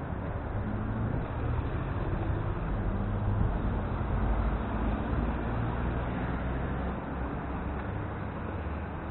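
Steady low rumble of wind and road noise on the microphone of a camera riding on a Sunsuki electric scooter as it rolls along a street. It grows a little louder around the middle.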